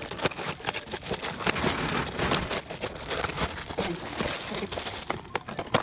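Plastic wrapping and cardboard mask boxes crinkling and rustling as they are handled and unpacked, a dense run of small crackles and clicks.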